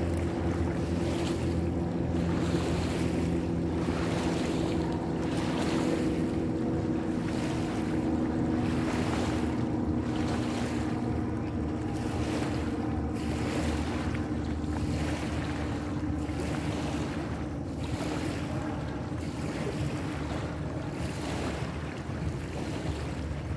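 A steady low engine drone whose pitch sinks slightly over time, under a rushing noise of wind and water that swells and fades about once a second.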